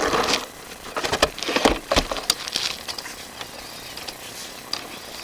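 Scattered knocks, clicks and rustling of handling noise, thickest in the first three seconds and sparser after.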